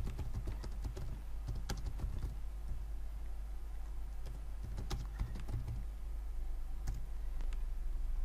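Computer keyboard typing: scattered keystrokes in short runs, busiest in the first two seconds and again around five seconds in. A steady low hum runs underneath.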